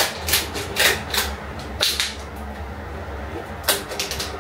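A spoon scooping cottage cheese out of a plastic tub: a quick run of sharp scrapes and clicks, a pause of over a second, then a few more near the end.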